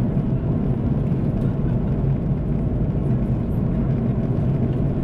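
Airbus A330-300 cabin noise at cruise: the steady low roar of the engines and rushing air heard from a window seat.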